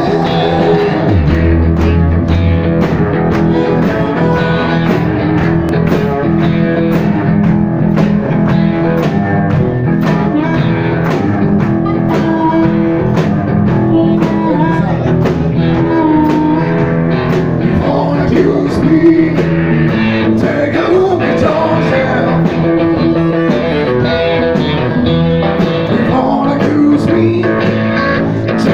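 Live rock band playing loud blues-rock: electric guitar, drums and a singer on a microphone.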